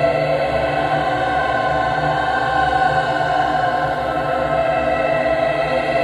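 Haunting choir singing long held notes, a steady sustained chord with no breaks.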